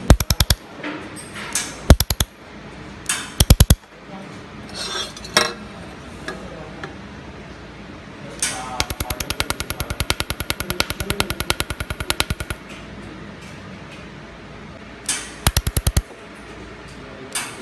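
Handheld laser welding machine firing on steel tube in pulsed bursts: rapid, even crackling at about ten pulses a second. There are several short bursts and one longer run of about four seconds in the middle.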